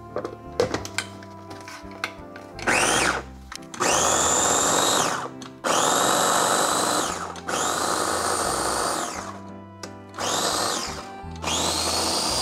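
Electric blender pulsed in six short bursts, its motor whining up to speed each time, grinding basil and toasted pine nuts coarsely for pesto. A few clicks come before the first burst.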